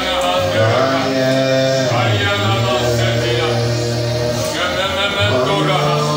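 Music: a man singing long held notes over instrumental accompaniment with sustained bass notes.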